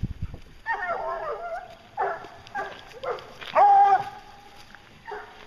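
English hunting hounds baying: a string of drawn-out bawls and shorter barks, with the longest and loudest bawl about three and a half seconds in.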